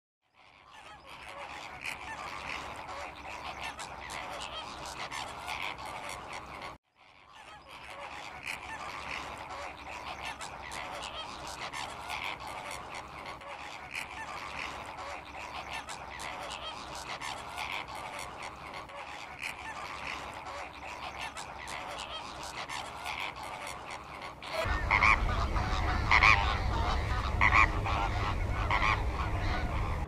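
A large flock of flamingos calling, a dense chatter of goose-like honking. It breaks off briefly about seven seconds in. From about 25 seconds in, louder, closer calls sound over a low rumble.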